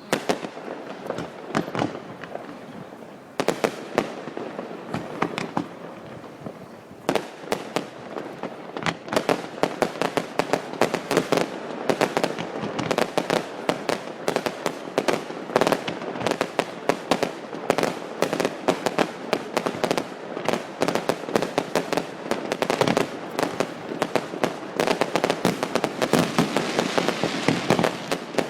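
Fireworks display going off: a few scattered bangs at first, then from about seven seconds in a dense, continuous barrage of bangs and crackles.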